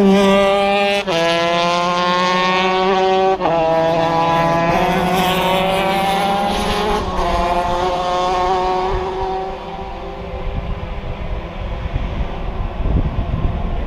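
Shifter kart's stock Honda two-stroke motocross engine pulling hard through the gears. The revs climb and drop sharply at each upshift, four times. About nine seconds in it falls back to a quieter, less even off-throttle sound.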